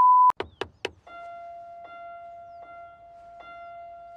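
A steady 1 kHz test-card beep cuts off abruptly a moment in. Three quick clicks follow, then a soft sustained keyboard-like musical note that is struck again three times.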